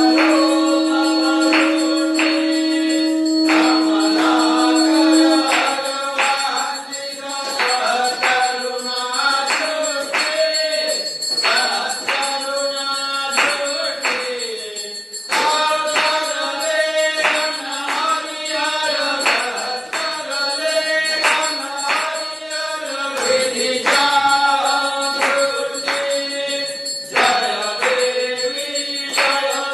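Devotional aarti singing carried on a regular beat of jingling, cymbal-like percussion. A single note is held steady under the voices for the first five seconds or so, then drops out.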